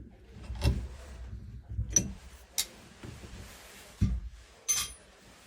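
Metal tools and small plumbing parts knocking and clinking as they are handled during a shower valve repair. There are several sharp clicks, two short metallic rings (one about two seconds in, one near the end) and a few dull thuds.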